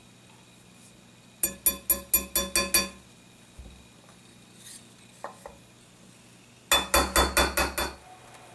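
Small hammer tapping the ejector latch pin into the barrel lug of an H&R Topper .410 shotgun: two quick runs of about eight light metallic taps, each tap ringing briefly.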